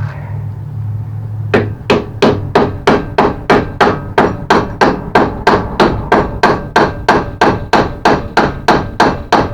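Hammer blows on a rusty hinge pin, striking steadily at about three a second to drive the pin out. The hammering starts about a second and a half in.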